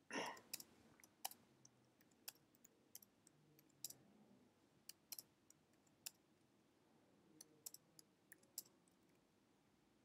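Faint, irregular keystrokes on a computer keyboard: a dozen or so separate clicks with short pauses between them, as numbers and plus signs are typed.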